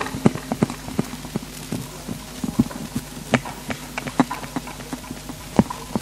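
Scattered, irregular knocks and clicks from hands handling and adjusting microphones on a mic stand, picked up through the sound system, over a faint steady hum.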